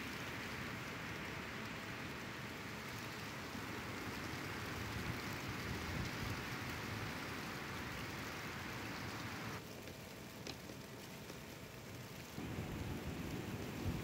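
Steady hiss of a snowstorm, blowing snow falling through the trees, which stops abruptly about ten seconds in. Low wind rumble on the microphone comes in near the end.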